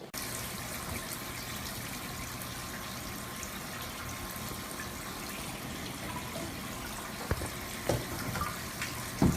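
Running water, a steady rush, with a few short knocks in the last two seconds.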